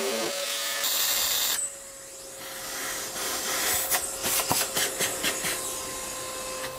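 Dust-extraction vacuum running with a steady whine while its hose nozzle sucks sawdust off a plywood board. A loud hiss of rushing air fills the first second and a half, then the nozzle rubs and knocks on the wood.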